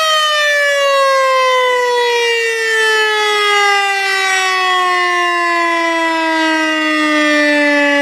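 Civil defense siren winding down: its wail falls slowly and smoothly in pitch, from high to low, with no break.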